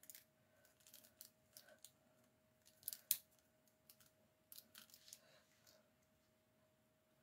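Faint, scattered small clicks and light rustles of metal tweezers handling die-cut paper pieces on a card, the sharpest tick about three seconds in. A faint steady tone hums underneath.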